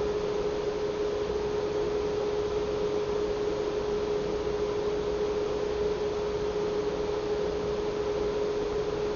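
A steady hum at one pitch over a faint hiss.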